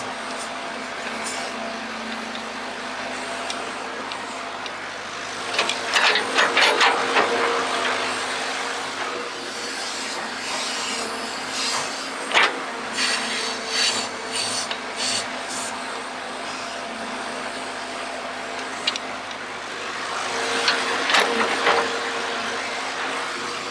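Excavator digging: a steady motor hum runs throughout, while the bucket scrapes and grates through soil in spells, about six seconds in, with a sharp scrape at about twelve seconds, and again near the end.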